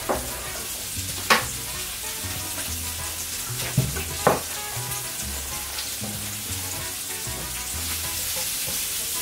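Chopped onion and green pepper sizzling in hot olive oil in a frying pan as they are stirred, with four sharp knocks of the utensil against the pan in the first half.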